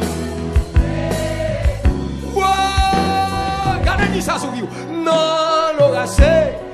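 Haitian Creole gospel worship song: sung voices holding long notes over instrumental backing with drum hits.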